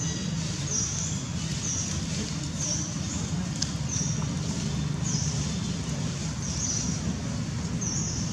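A short, high chirp repeated evenly about every three-quarters of a second, over a steady low rumble.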